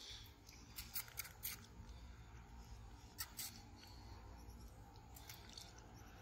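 Faint wet clicks and smacks of a baby capuchin monkey sucking milk from a feeding syringe, coming in a few short clusters about two seconds apart.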